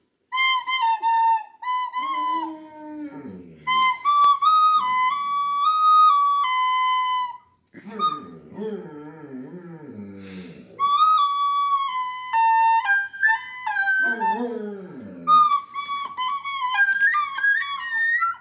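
A large mastiff howling along to a high, flute-like tune. The tune plays in short phrases of stepped notes, and the dog's long, wavering howls come in three times between them.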